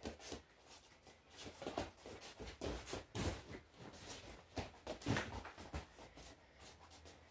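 Two wrestlers grappling on a foam wrestling mat: irregular scuffs, slaps and thuds of feet and bodies on the mat, loudest around three and five seconds in, with short grunts of effort.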